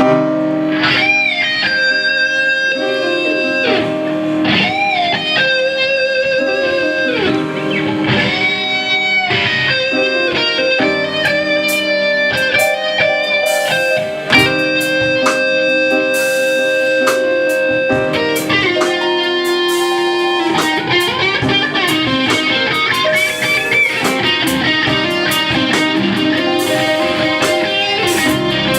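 Live band music: an electric guitar solo with bent notes and vibrato over steady held chords, moving into quicker runs of notes about two-thirds of the way in.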